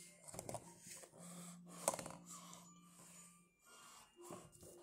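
Close-up breathing through the nose and small handling noises, with one sharp tap about two seconds in. A low steady hum sounds in the middle stretch.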